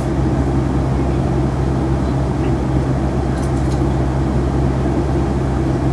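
Boeing 757-300 jet engines and airflow heard inside the passenger cabin: a loud, steady, low drone that does not change, with a few faint ticks about halfway through.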